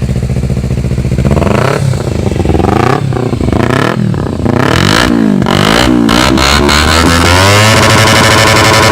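2010 Kawasaki Ninja 250R parallel-twin with a Yoshimura R-77 aftermarket exhaust, idling and then revved in a series of quick blips, each rising and falling back. Near the end it is held at high revs.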